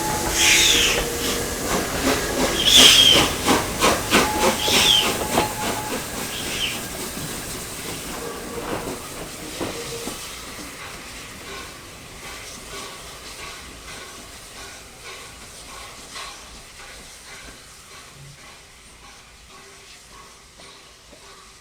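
Steam locomotive 60163 Tornado, a Peppercorn A1 Pacific, working a train: sharp hisses of steam about every two seconds and rapid clicking from the train, fading steadily as it draws away.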